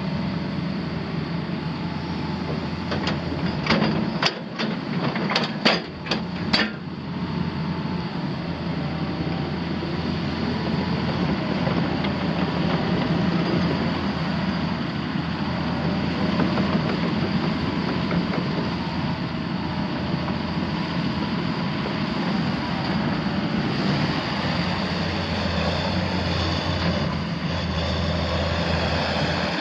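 John Deere 6068T 6.8-litre six-cylinder diesel engine of a John Deere 200DLC excavator running steadily, with a quick run of about six sharp knocks a few seconds in. The engine gets a little louder near the end.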